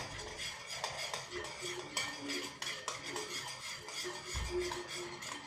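A spoon stirring and scraping a thick salt-and-washing-up-liquid slime mixture in a bowl, with many quick small clinks and scrapes, working out the lumps of soap.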